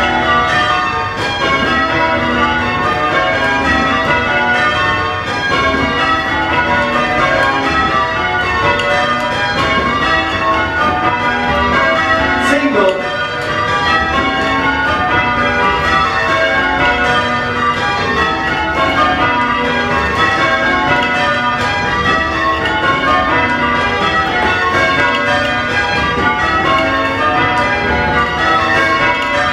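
A ring of eight church bells, mostly modern Whitechapel castings with a tenor of about 7 cwt in B, rung full-circle in Surprise Major change ringing. The bells strike in a steady, continuous stream of changes, one after another.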